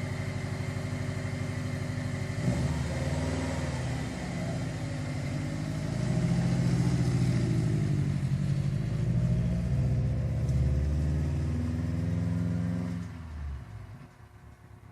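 Subaru WRX STI's turbocharged flat-four running with the muffler removed (exhaust delete). It runs steadily at first, then gets louder about two and a half seconds in as engine speed rises and falls, and fades away about a second before the end.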